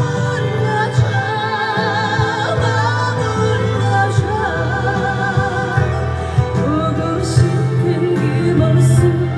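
Live slow trot ballad: a wavering melody line with vibrato over steady bass and band backing.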